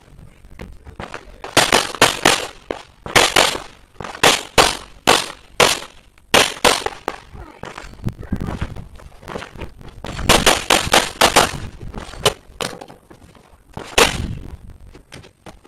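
Handgun fired in rapid strings of two to six shots, with short pauses between strings, about two dozen shots in all; the last is a single shot near the end.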